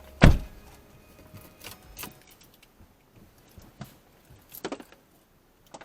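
A car door slams shut about a quarter second in, with a heavy low thud. Faint clicks and rustles follow, and a short rattle of sharp clicks comes near the end.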